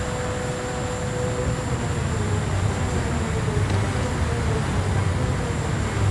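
Jet turbine engine running at high power: a steady, dense rush of exhaust with a thin high whine, its low rumble growing stronger about halfway through.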